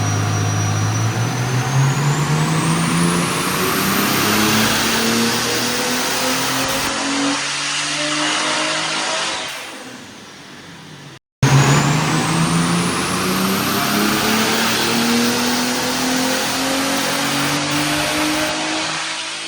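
Turbocharged Mercedes 190E straight-six engine, a turbo M103, on wide-open-throttle dyno pulls: twice the engine note climbs steadily through the rev range for about nine seconds, with a high whistle rising along with it. An abrupt cut about eleven seconds in separates the two pulls.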